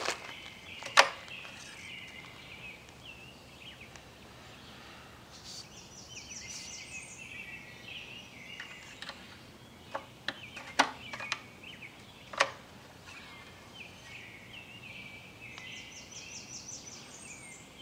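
Songbirds chirping and trilling, with a few sharp clicks and knocks about a second in and again around ten to twelve seconds in as a push lawnmower's plastic oil dipstick is pulled, wiped and handled.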